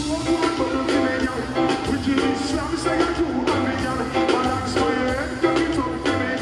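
Live dancehall music played loudly, with drums and a steady bass line under singing.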